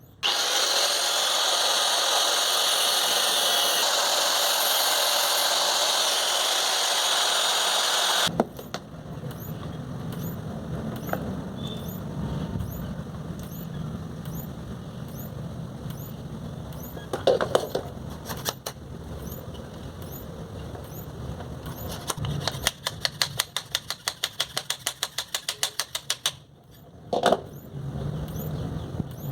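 775 DC motor running and spinning a flexible shaft through a shaft connector made from a tyre-tube valve. For about eight seconds it runs loud and steady, then the sound drops to a quieter running with scattered clicks, and later a run of rapid, even clicks.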